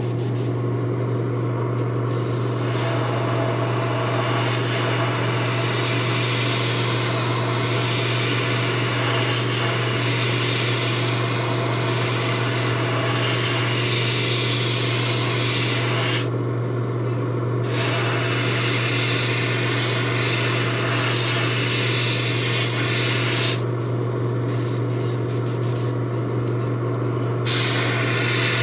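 Airbrush spraying paint in a steady hiss of air, broken off twice, once for about a second and later for about four seconds, over a constant low hum.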